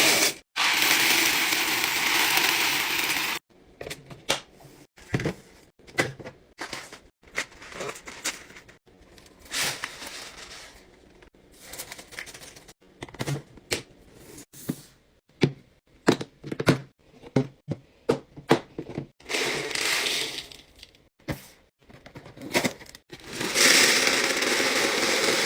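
Restocking handling sounds: a run of clicks, taps and crackles of plastic containers and packaging being handled, set between stretches of a steady rushing sound at the start and again near the end.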